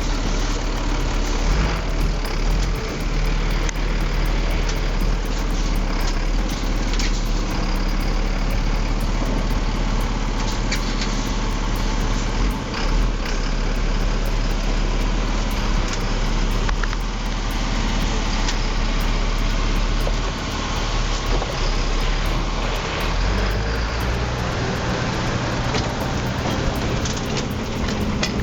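Heavy logging truck's engine running steadily under load, a low rumble with a few brief knocks and clanks.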